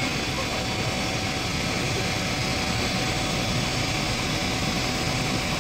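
Steady engine drone with a faint steady whine above it, from a truck-mounted crane's engine running.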